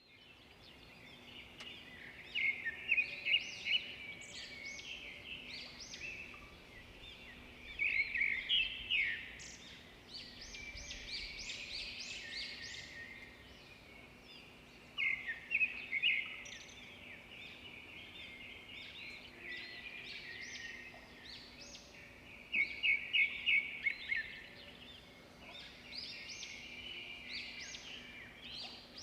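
Birds singing: bursts of rapid, high chirps about every six or seven seconds, with softer chirping in between, over a faint steady hum.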